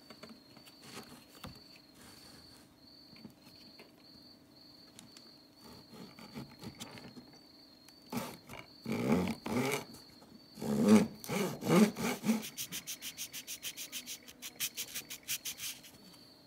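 Small hand hacksaw cutting a small wooden block: faint scraping at first, then slow, loud saw strokes from about eight seconds in. Near the end come quick short strokes, about seven a second, as a thin metal file is rubbed along the cut edge.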